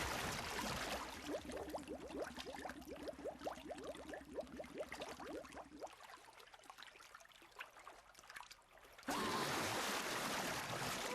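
Cartoon water sound effects: rapid bubbling made of many quick rising blips, which thins out and fades. About nine seconds in, a sudden loud rush of water noise begins.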